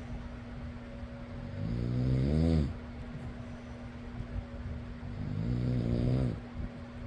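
A person snoring: two snores about four seconds apart, each lasting about a second and rising in pitch at its end. Under them an electric fan hums steadily.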